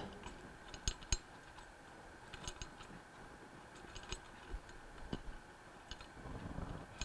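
Faint, scattered light metallic clicks as the impeller bolt and lock washer are threaded by hand into the shaft end of a Bell & Gossett Series 80 pump's impeller.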